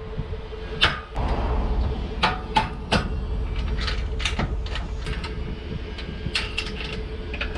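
Metal clinks and clanks of boat-trailer safety chains and the coupler being handled and hooked up at a pickup truck's hitch: about a dozen sharp strikes, some in quick pairs, over a steady low rumble.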